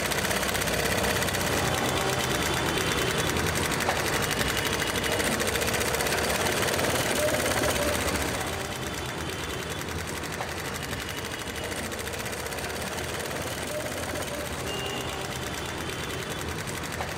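Sewing machine running, stitching through cloth in a fast, even patter. It is loudest for about the first eight seconds, then the level drops and the sound carries on quieter.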